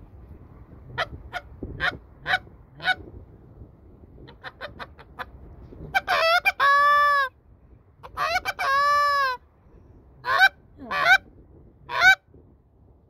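I-57 short-reed Canada goose call being blown in a calling sequence of clucks and honks. It starts with four sharp clucks and a quick run of faint short notes. Then come two longer honks, each breaking into a held note of about a second, and three more clucks near the end.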